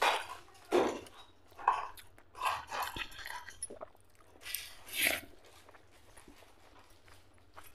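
Close-miked eating sounds: wet chewing and lip smacking on a mouthful of rice and mutton fat curry eaten by hand, along with squishing as fingers mix the rice into the gravy. The sounds come in a string of irregular bursts, busiest in the first five seconds and softer after.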